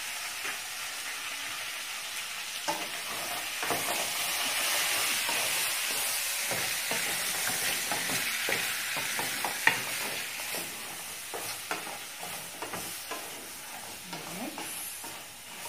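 Meat and tomato pieces sizzling in a stainless steel saucepan on a gas burner, with a utensil scraping and clinking against the pan as they are stirred. The sizzle is strongest in the middle and eases toward the end, with one sharp clink about ten seconds in.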